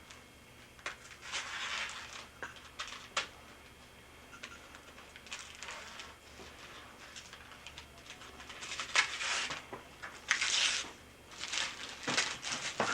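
Gift wrapping paper rustling and tearing in irregular bursts, with a few sharp clicks of the paper snapping, loudest near the end.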